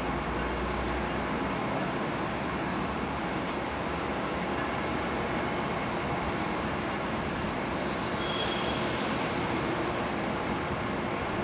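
Steady distant vehicle and rail noise, an even background rumble, with a few faint, brief high tones.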